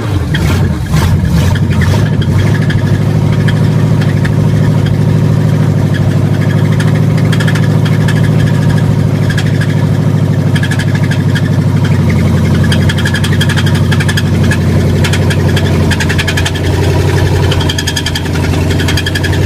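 Engine idling steadily just after being started, its note shifting slightly about two-thirds of the way through.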